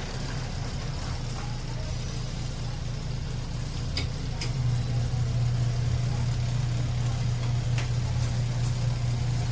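Small portable twin-tub washing machine's motor running with a steady low hum, which gets louder about halfway through, with a few faint clicks.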